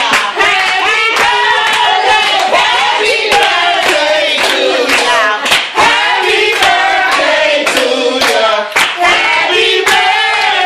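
A group of people singing or chanting together while clapping a steady beat, about two claps a second.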